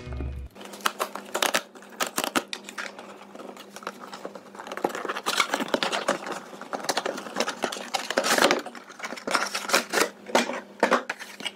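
Cardboard packaging of a Magic: The Gathering Commander deck box being handled and opened by hand: the sleeve and inner box slide and scrape against each other, with irregular rustling and a run of sharp taps and clicks.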